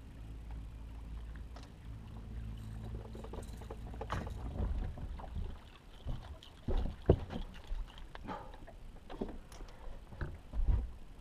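Small fishing boat: a low steady hum for the first few seconds, then irregular knocks and clatter on board, two of them louder than the rest.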